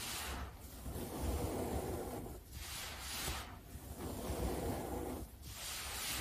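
Baking soda powder crushed under pressing hands and poured down in streams. It makes a soft crunching hiss in repeated passes of a second or so, with brief pauses between them.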